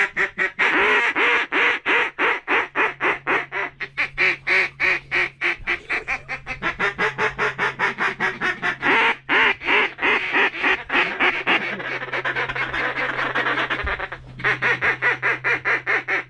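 Mallard duck call blown in a long, rapid run of quacks, about five a second, with short breaks twice. This is calling to draw passing ducks in over the decoys. A steady low hum runs underneath.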